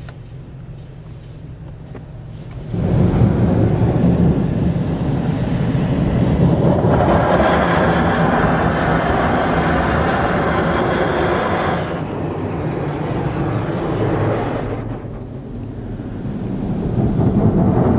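High-pressure rocker panel blasters of a Kärcher Opti Wash 8000 in-bay automatic car wash spraying water against the lower sides of the car, heard from inside the cabin. A loud rush of spray starts suddenly about three seconds in, is strongest in the middle, eases briefly and builds again near the end.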